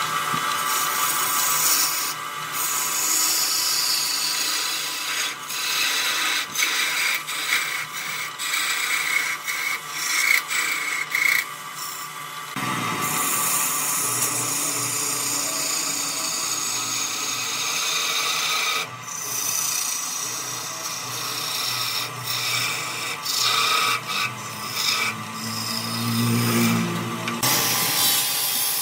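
A hand-held turning chisel cutting into a spinning wooden vase on a lathe: a continuous scraping, shaving noise with many short cutting strokes over the running machine. The sound changes abruptly a couple of times. Near the end an angle grinder with a sanding disc takes over on the spinning wood.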